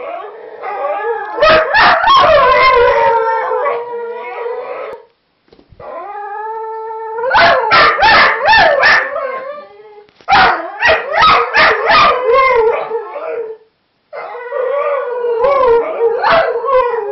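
Whippets howling together, several long wavering howls overlapping with short sharp yips. They come in four bouts with brief pauses between.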